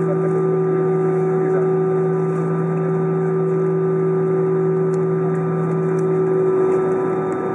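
Steady cabin drone of an Airbus A319 on the ground, its jet engines running at idle, a constant low hum with a few steady tones over it.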